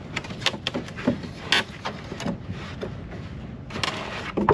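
Clicks, knocks and a brief scrape from hardware being handled as a gas spring is fitted to a trolling motor mount, with a cluster of louder knocks near the end.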